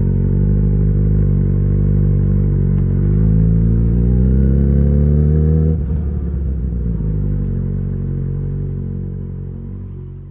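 Yamaha XJ6 inline-four motorcycle engine through an Ixill full exhaust with the dB killer fitted, on the move. The revs climb steadily for a couple of seconds under throttle, then the note drops suddenly a little before halfway, runs on lower and fades out near the end.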